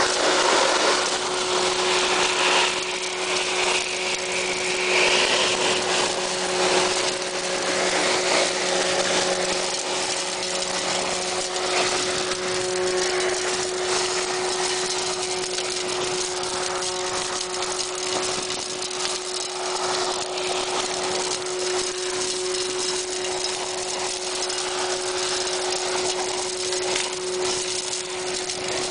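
Vision5000 heavy industrial vacuum unit sucking used garnet blast grit through its hose nozzle: a steady rush of air over a constant hum, with a fine crackle of grit going into the pipe.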